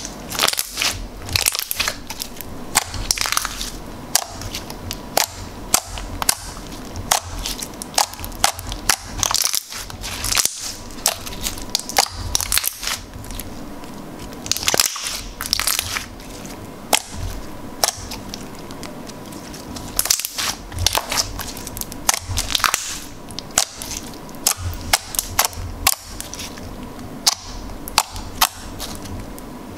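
Glossy black slime being stretched, squeezed and pressed by hand: irregular sharp pops and clicks, packed closely in places, with wet squishing noise between them.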